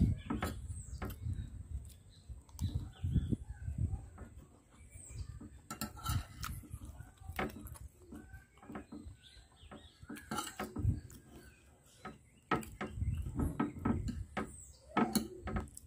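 Spoon and fork clinking and scraping against a china plate while cutting up and scooping rice and fried fish, in a string of short, sharp clicks.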